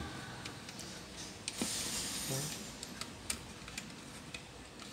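Plastic front panel of an automatic voltage regulator (AVR) being handled against its casing and latch: a few light sharp clicks, with a brief rubbing noise about one and a half seconds in.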